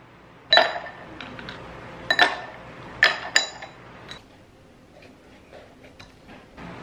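Hard tableware clinking: four sharp, ringing clinks in the first three and a half seconds, then lighter clicks and taps.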